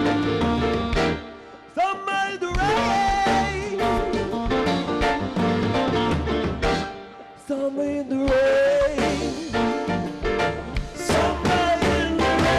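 Live rock band playing: electric bass, electric guitar, keyboards and drum kit, with a male voice singing the melody in phrases over the steady beat.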